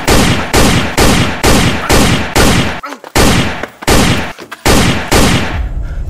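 Pistol fired in a rapid string of about ten shots, roughly two a second, each shot ringing out, with two brief pauses; the firing stops shortly before the end.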